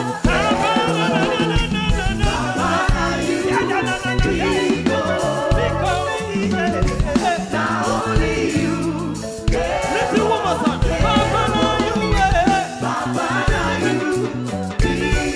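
Upbeat gospel praise music: singing, likely a choir or backing vocalists, over a band with a steady bass-driven beat.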